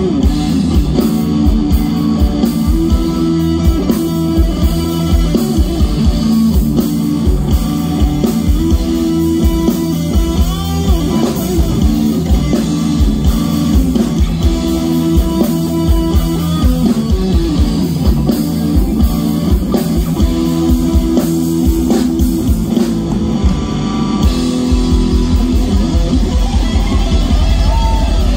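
Live rock band playing: electric guitars and bass over a drum kit keeping a steady beat, with no singing.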